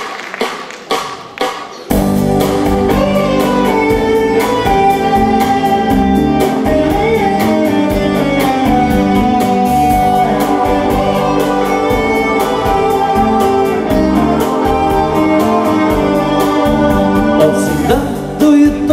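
Live band playing the instrumental introduction to a song, with guitar over a steady beat; the full band comes in abruptly about two seconds in, after a few scattered sharp sounds.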